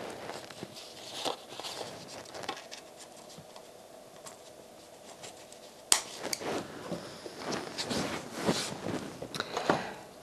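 Small scissors cutting a linen button free from its cardboard card, with one sharp snip about six seconds in. After it come light clicks and rustles of the card and button being handled.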